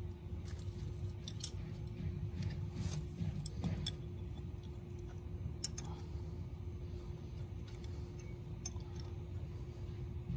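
Hand wrench clicking and clinking on the oil drain plug as the plug is threaded back in and tightened on a Kohler mower engine: scattered small metallic clicks, one sharper click about halfway through.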